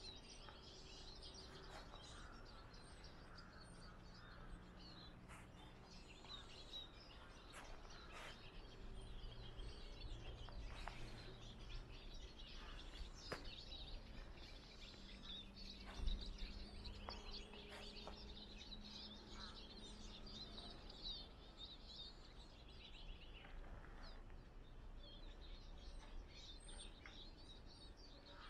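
Quiet outdoor ambience: small songbirds chirping and twittering throughout over a faint low hum. A few soft knocks, with one louder thud about halfway.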